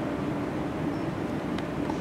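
Steady low drone of airport terminal ambience, a constant hum with one faint tick about one and a half seconds in.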